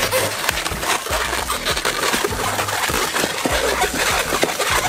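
Inflated latex 260 modelling balloons squeaking and rubbing under the hands as they are twisted into segments, a dense crackle of short squeaks and rubs.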